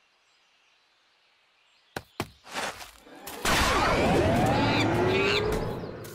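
Cartoon action sound effects: a near-silent moment, then two sharp thumps about two seconds in, followed by a loud, dense burst of crashing noise threaded with sliding whistle-like tones that rise and fall for the last few seconds.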